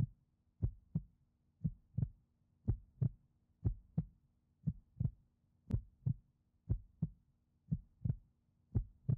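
Slow heartbeat, a lub-dub pair of thumps about once a second.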